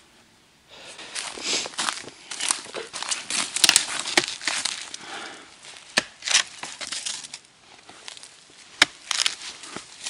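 Boots crunching through a thin layer of snow over dry leaf litter and twigs, in irregular rustling steps. Several sharp cracks come in the second half.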